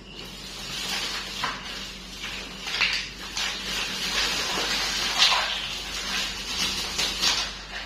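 Rustling and light clicking of plastic toy pieces and packaging being handled, with several sharper clicks.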